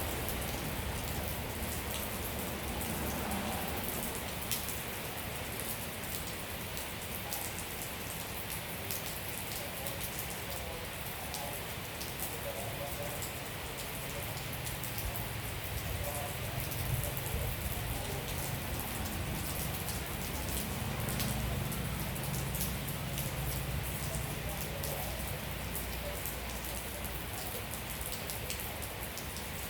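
Steady rain falling, with a constant hiss and many individual drops ticking on surfaces.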